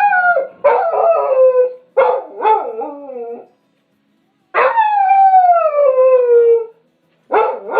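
Dog howling: a run of howls, each sliding down in pitch, with short breaks between them. The longest howl, drawn out for about two seconds in the middle, falls steadily, and a new howl begins near the end.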